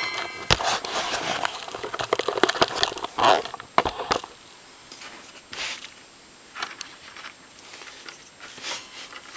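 Clattering, rustling handling noises of tools and parts being moved about at the saw. They ease off about four seconds in to a few scattered clicks.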